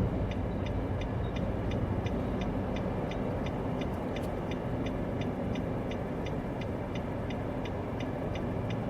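Steady road and engine noise inside a moving car's cabin, with an evenly spaced ticking of about two to three clicks a second: the turn signal clicking.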